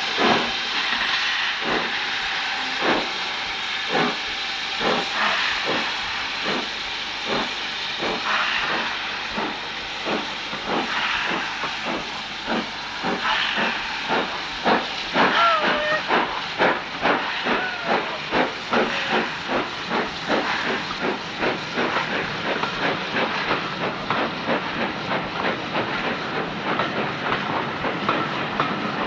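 BR Standard Class 4MT 4-6-0 steam locomotive 75027 starting a train away, its exhaust beats quickening from about one a second to three or four a second. A steady hiss of steam from the open cylinder drain cocks runs under the beats.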